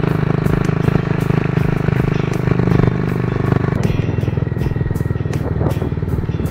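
Motorcycle engine running steadily while riding, heard from on the bike, with a pulsing engine note that eases slightly about four seconds in.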